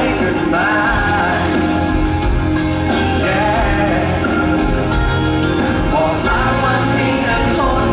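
Live pop song: a male singer singing into a handheld microphone over amplified backing music with steady bass and drums.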